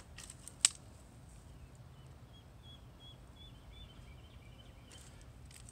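A sharp click about half a second in, the loudest sound, among a few lighter ticks; then a run of faint, short, high peeps through the middle, from ducklings on the pond.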